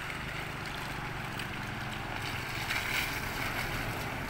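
An engine running steadily in a low, even drone, with wind on the microphone.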